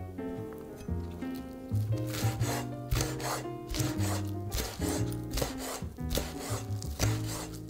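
Cleaver chopping green onions on a wooden cutting board: a quick run of knife strokes against the wood, over background music.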